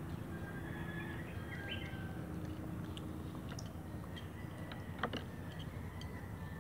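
Chewing, then chopsticks stirring noodles in a plastic bowl, with one sharper click about five seconds in. Under it runs a steady low background hum with faint bird chirps.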